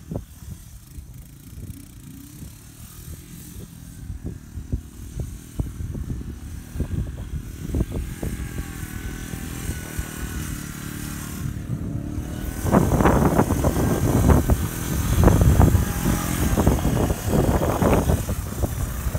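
1986 Honda Big Red 250ES three-wheeler's single-cylinder four-stroke engine being ridden and revved. It starts faint and far off, grows louder as the machine approaches, and is loudest from about two-thirds of the way in as it passes close.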